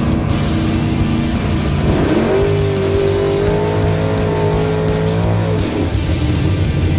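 Background music with a race car engine over it: about two seconds in the engine revs up and holds a steady high pitch for about three seconds, then drops away.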